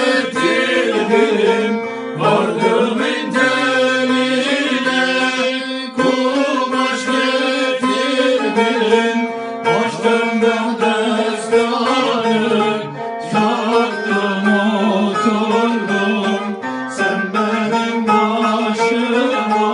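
Live Turkish folk music: a bağlama (long-necked saz) plucked and strummed, with sustained melodic tones over it, as an instrumental passage between sung lines.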